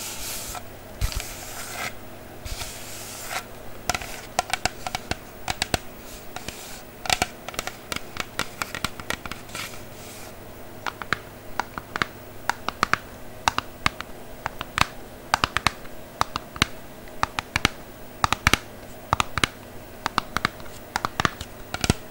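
Fingernails scratching and tapping on a box holding tennis balls: hissy scratching strokes in the first few seconds, then a long run of sharp, irregular taps and clicks.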